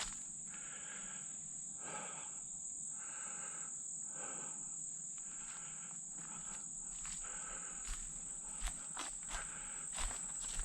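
Insects calling: a steady high drone, with a lower pulsing chirp repeating about once a second. Footsteps come in over the last few seconds.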